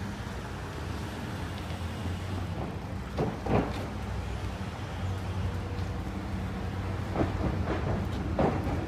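A vehicle engine running on the street with a steady low hum, with a few short, sharper sounds about a third of the way in and near the end.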